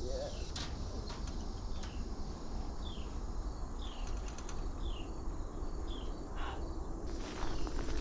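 Crickets and other insects calling outdoors at dusk, with a short falling chirp repeating roughly once a second over a steady rustling background; a few scuffs of movement near the end.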